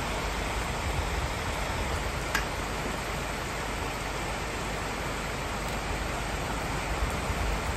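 Heavy, steady rain falling, with a low rumble underneath and one brief click a little over two seconds in.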